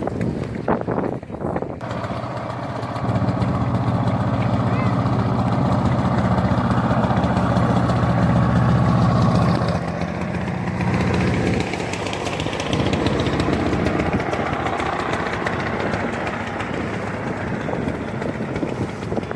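Speedboat engine running steadily over the rush of wind and water. Its note grows louder about three seconds in and eases back about ten seconds in.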